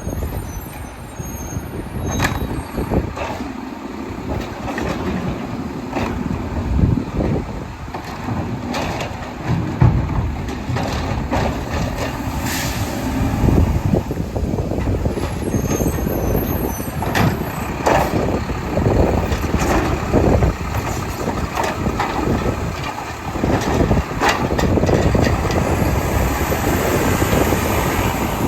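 Mack LEU garbage truck with a Labrie Automizer side-loader body working its collection route: the diesel engine runs throughout, with repeated knocks and clunks and a burst of air-brake hiss about halfway through.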